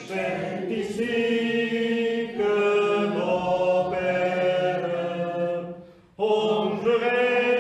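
A congregation singing a hymn together in long held notes, breaking off briefly about six seconds in before the next phrase starts.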